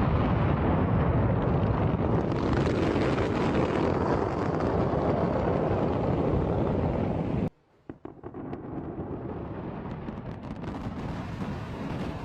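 Fireworks going off in a dense, continuous rumble of explosions. The sound cuts off abruptly about seven and a half seconds in and gives way to quieter noise with scattered crackles and pops.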